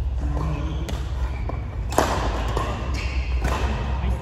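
Several short, sharp knocks, the loudest about two seconds in, over a steady low hum.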